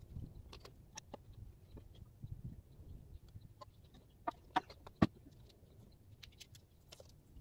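Scattered light clicks and knocks of wooden framing boards being handled on a concrete pad. A quick cluster of sharper knocks comes about four to five seconds in, the loudest near five seconds.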